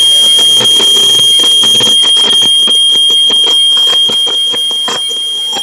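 Moving-door alert module on a Genie Genius TracDrive GG-1950 garage door opener sounding one loud, continuous high-pitched electronic tone, a warning that the door is in motion, over a rapid clatter of clicks. The alert is really loud and annoying.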